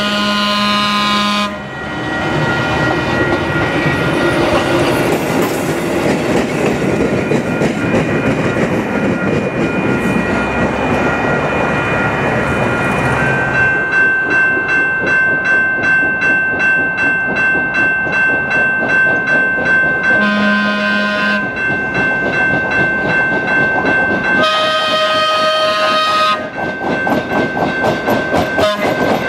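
Replica Pacific Electric Red Car trolley sounding its horn in short blasts, once at the start and twice more about twenty and twenty-five seconds in, over a crossing warning bell ringing steadily. In the last few seconds its wheels click quickly over the rail joints as it draws close.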